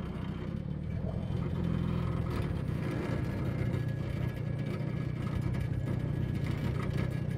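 A small boat's motor running steadily: a low, even hum.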